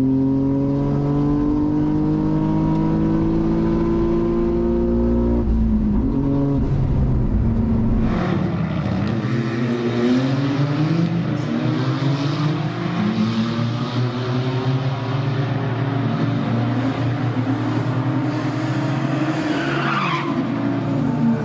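Toyota GR Yaris's turbocharged 1.6-litre three-cylinder engine, with an aftermarket exhaust, at full throttle on a quarter-mile drag run. Heard from inside the cabin, it rises steadily in pitch through a gear, with an upshift about five seconds in. From about eight seconds in, the car's engine and tyres are heard from trackside instead, changing pitch as it runs down the strip.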